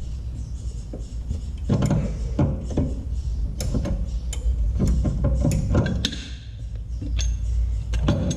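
Irregular knocks and clatter of hand tools working a seized control-arm bushing collar on its stud, over a steady low rumble.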